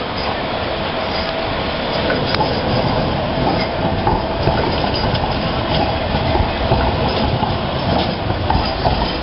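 Bombardier M5000 (Flexity Swift) light-rail tram passing close by on street track: a steady rumble of wheels on rail that grows louder about two seconds in, with a faint steady whine and a few light clicks.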